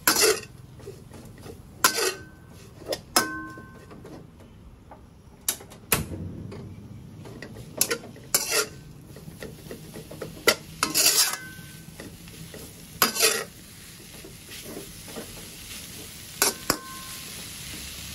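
A metal slotted spatula scrapes and knocks against a stainless steel honeycomb wok while mushrooms are stir-fried, over a steady low sizzle. The strikes come irregularly, about one every second or two, and several leave a brief ringing tone from the wok.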